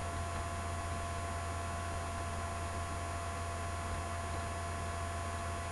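Steady electrical hum with an even hiss and two faint steady tones above it, with no other sound standing out.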